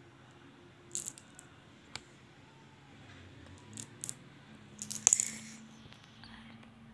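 Small hard candy balls clicking and rattling against one another in a palm: a few separate light clicks, with the loudest cluster about five seconds in.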